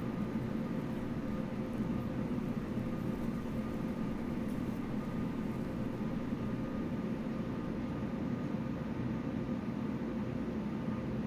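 Steady low hum with an even hiss over it, unchanging throughout, with no music or distinct events.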